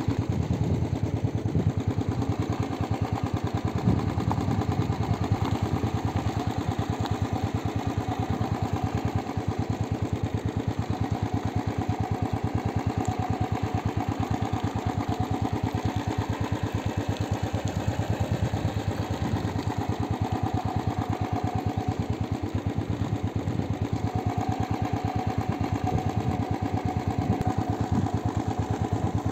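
Motorcycle engine running steadily while riding, a fast even chugging with no change in pace.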